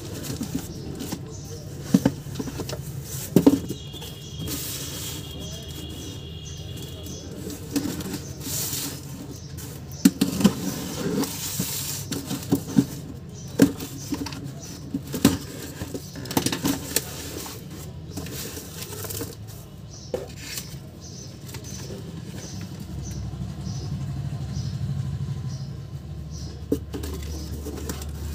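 Cardboard parcel box being handled and opened by hand: scattered taps and scrapes on the cardboard and rustling as packing tape is slit with a ballpoint pen and pulled away. A low steady hum runs underneath and grows louder near the end.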